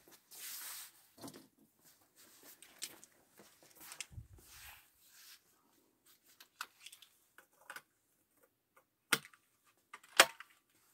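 Double-barrelled break-action shotgun being handled and loaded: faint rustling and small clicks, then two sharp metallic clicks about a second apart near the end as the action is worked.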